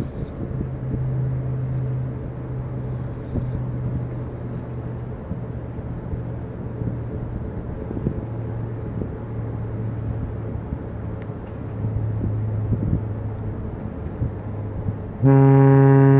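A steady low engine drone, then about a second before the end the freighter CSL St. Laurent's deep ship's horn starts a loud blast, the opening of a horn salute.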